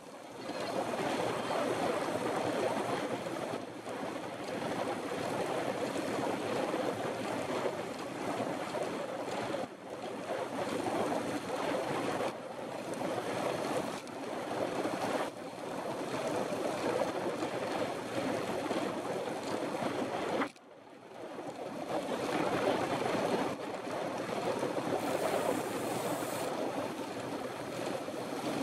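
Wind rushing over the microphone of a handlebar-mounted camera on a road bike moving at speed: a steady rushing noise that dips briefly about twenty seconds in.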